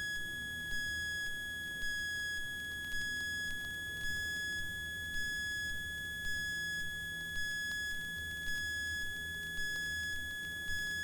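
A steady, high electronic tone with a row of overtones over a faint low hum. It pulses slightly about once a second.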